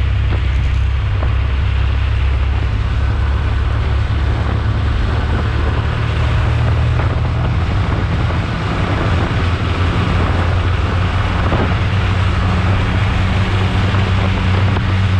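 Roadster race car's engine running hard at speed, with steady wind and road noise; loudness dips briefly about eight and a half seconds in.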